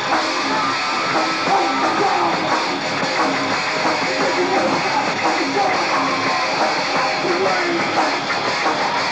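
Rock band playing live: electric guitars and drums in a continuous, dense wall of sound.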